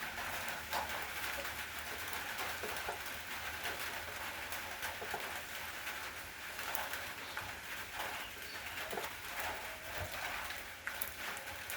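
Steady rain falling: an even hiss with many separate drops ticking as they land.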